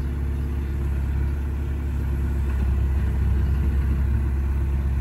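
John Deere backhoe loader's diesel engine running steadily with a deep rumble, growing slightly louder about halfway through.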